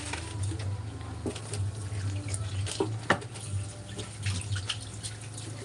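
Kitchen tap running into a bowl in a metal sink, with splashing and light clinks as the bowl is rinsed under the stream. A steady low hum sits underneath.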